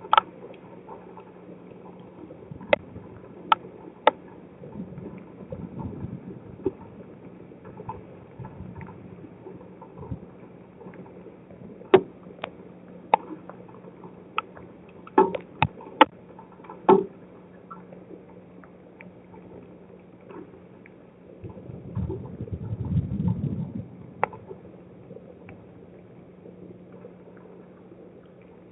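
Scattered sharp taps of water drops striking the storm-lashed driveway security camera, over the camera's steady low hum. A low rumble swells for a few seconds near the end.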